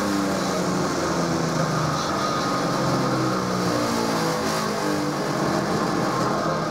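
BIK 103M electric feed grinder running steadily as it shreds hay.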